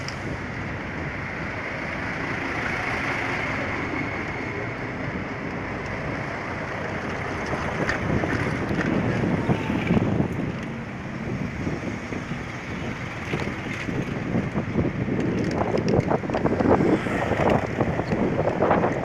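Wind rushing over a phone microphone with the road noise of a moving vehicle, growing gustier near the end.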